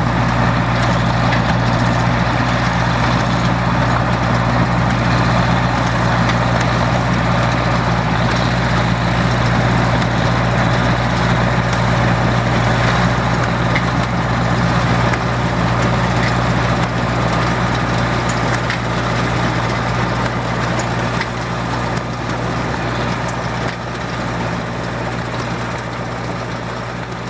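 John Deere 800 windrower running steadily through the wheat, its gasoline slant-six engine and cutting head working. The sound fades over roughly the last ten seconds as the machine moves away.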